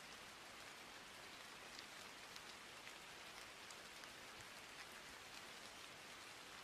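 Near silence: a faint steady hiss with scattered tiny clicks, the background noise of the recording.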